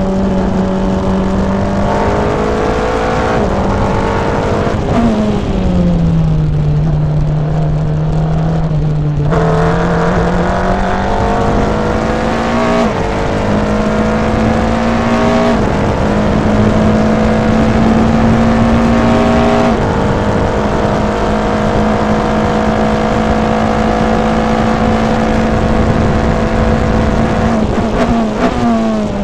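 Open-wheel single-seater race car's engine heard from onboard at racing speed. The engine note sinks as the car slows for a corner about five seconds in. From about nine seconds it pulls hard again, with the pitch dropping at each upshift, and it comes down through the gears near the end.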